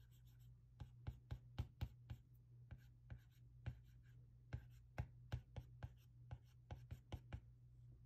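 Apple Pencil tip tapping and stroking on the iPad's glass screen: a quick, irregular run of light clicks, about three a second.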